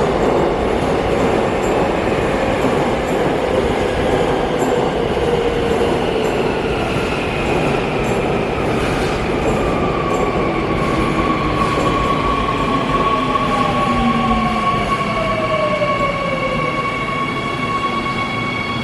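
Seoul Metro Line 2 electric subway train pulling into the station: a steady rumble of wheels on rail, with the motor whine gliding down in pitch as it brakes and a thin high squeal near the end.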